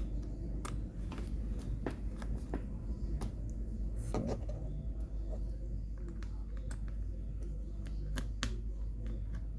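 Irregular light clicks and taps of small tools working on a phone's internal metal shield and its tiny screws, over a steady low hum.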